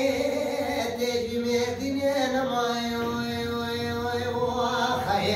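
A man singing unaccompanied, solo, in a long melismatic line: the pitch slides and wavers over the first couple of seconds, then settles into one long held note.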